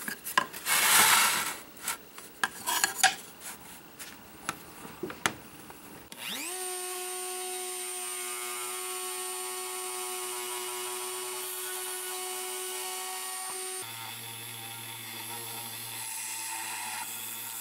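Hands sliding and tapping a circuit board into place on a metal drill press table. About six seconds in, a small benchtop drill press motor spins up and runs steadily with a high whine; its chuck has a ton of runout. Near the end the sound changes and a low hum comes in as the bit is lowered onto the copper-clad board to drill an alignment hole.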